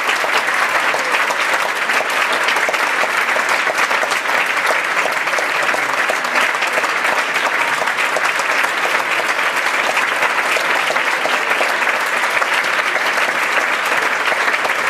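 Audience applauding steadily: dense, even clapping from many hands.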